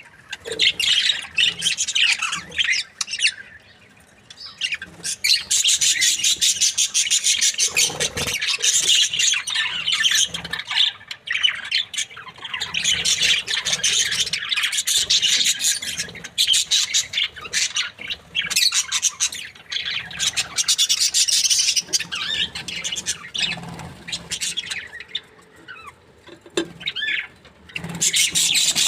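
Budgerigars chattering: rapid chirps and warbles in stretches of several seconds, with short lulls in between.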